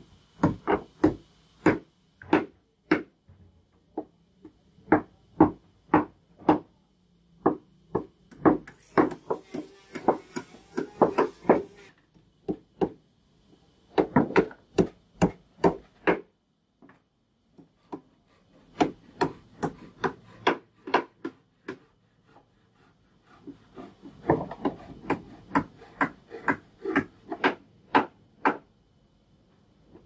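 Hammer blows driving nails into the wooden boards of a feeding trough, coming in quick runs with a couple of brief pauses in the second half.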